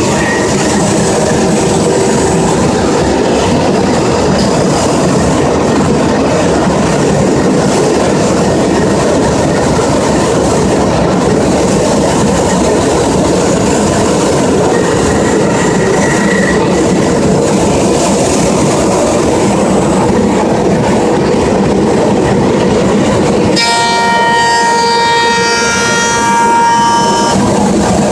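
CNC router cutting the top profile of a handrail, a loud, steady cutting noise. About 24 seconds in, the noise thins for a few seconds into a steady whine made of several tones.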